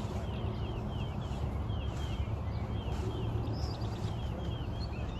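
Birds chirping, a string of short falling chirps repeated every fraction of a second, over a steady low rumble.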